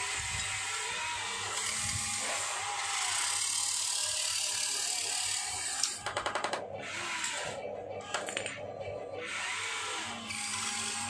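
Toy RC excavator's small electric motors and plastic gearing whirring as the boom, bucket and turntable move. About six seconds in comes a run of rapid clicking.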